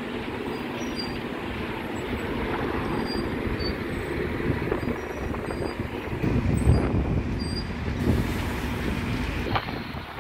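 Scania double-decker bus's diesel engine and tyres as it pulls away and drives past close by. The rumble swells about six seconds in and eases off near the end as the bus moves away.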